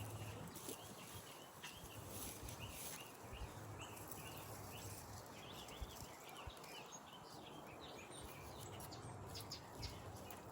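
Small birds chirping over and over, faint, with a low hum that comes and goes and a few light taps.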